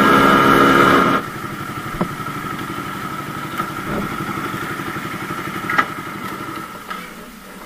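Suzuki Satria FU motorcycle engine running under way, then dropping to a quieter idle about a second in as the bike is pulled up and parked, with a few light clicks; the engine sound falls away near the end.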